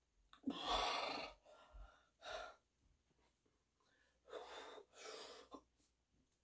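Heavy breathing from exertion during dumbbell curls: a few forceful breaths, the loudest about a second in and a longer one past the middle.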